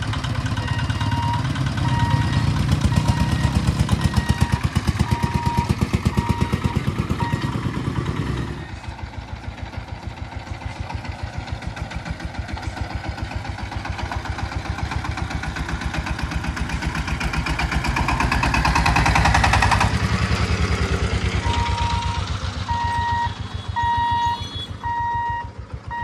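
Motorcycle engines running at a railway level crossing, their low sound dropping away after about eight seconds, while the crossing's electric warning buzzer beeps about once a second. Another vehicle passes and swells up around eighteen to twenty seconds in. The warning beeps start again about twenty-one seconds in as the boom barrier moves.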